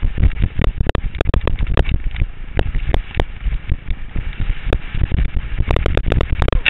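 Skis running over rough, chopped-up snow, heard through a helmet-mounted GoPro Hero camera: an irregular stream of sharp knocks and clatter over a steady low rumble.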